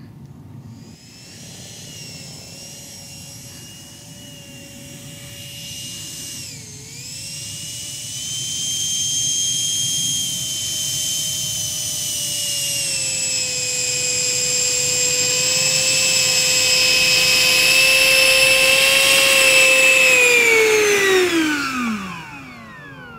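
Electric ducted fan of a radio-controlled BAE Hawk jet model (MB1 motor, Wemotec rotor) whining steadily as it taxis, with a brief dip in pitch about seven seconds in. It grows louder as the model comes closer, then spools down near the end with a falling whine as the motor is throttled off.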